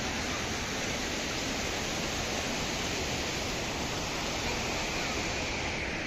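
Steady, even rushing of the Chaparai waterfall's water.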